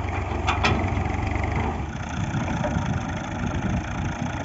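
1978 Fiat 480 tractor's three-cylinder diesel engine running at idle, its steady low note changing about two seconds in. Two short sharp clicks sound about half a second in.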